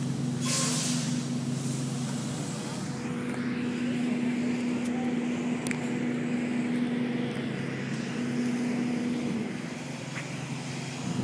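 A motor vehicle engine running steadily, a low even hum that stops about nine seconds in. A short hiss comes near the start.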